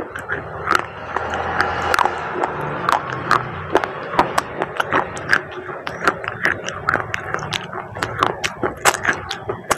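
Baked clay pot pieces being bitten and chewed: irregular sharp crunches and cracks, several a second, over steady background noise.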